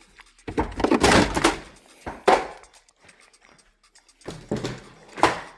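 Hands working on a refrigerator icemaker and its wire harness: a loud scraping, rustling handling noise, then sharp clicks of parts being worked loose.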